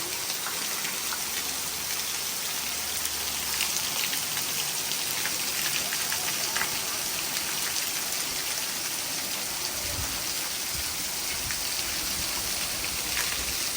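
Waterfall: a steady rushing hiss of falling water with fine splashing ticks.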